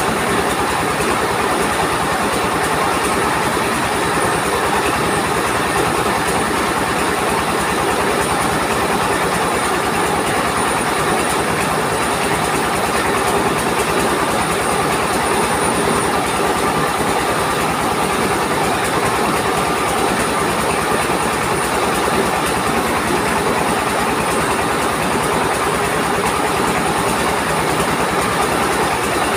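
Trailer-mounted mobile rice mill running at full work: a stationary diesel engine drives the huller and polisher by belt, giving a loud, steady, rapid mechanical clatter while grain is fed through.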